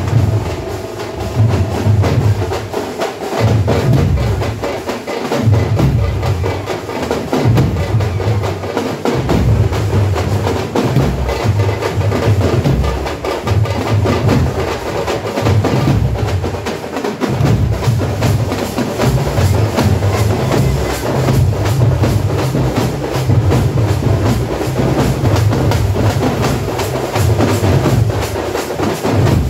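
Tamate frame drums beaten with sticks by a drum troupe, playing loud, fast strokes over a deeper beat that recurs about every second.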